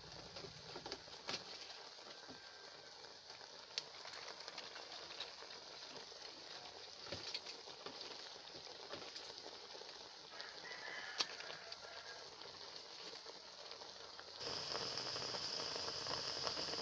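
Pot of milkfish and cabbage simmering in its vinegar broth, with scattered crackles and pops; about fourteen seconds in a louder, steady sizzling hiss sets in.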